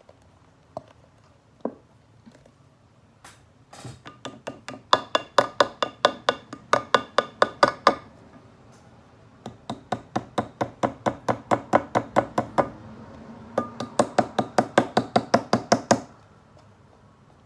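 Plastic school-glue bottle being squeezed and shaken upside down as it nears empty, sputtering out the last glue and air. The pops come quickly, about five a second, in three runs with short pauses between.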